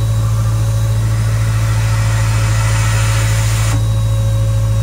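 Compressed air hissing through a steam locomotive's power reverse unit as it is exercised on shop air. The hiss swells and cuts off sharply near the end, over a steady low machine hum that is the loudest sound throughout.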